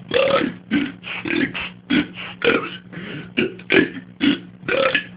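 A man burp-talking, belching out one short burped word after another about every half second as he counts up toward ten by burping.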